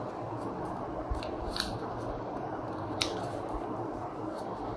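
Sheet of origami paper being folded and creased by fingers on a tabletop: soft handling with three short crisp paper clicks, the loudest about three seconds in.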